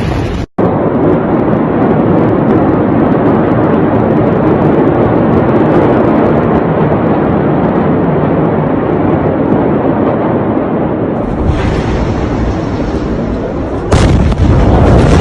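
Rumble of a large explosion and fire, recorded on a phone: a steady, dense rumble with faint crackling pops, then a sudden louder blast near the end.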